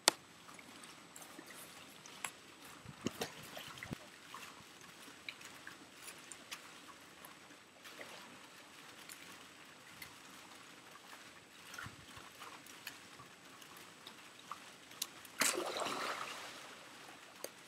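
Pool water trickling and lapping with small scattered clicks, then, about fifteen seconds in, a sudden splash of spray that fades over a second or so as a surfboard with a rider skims across the pool.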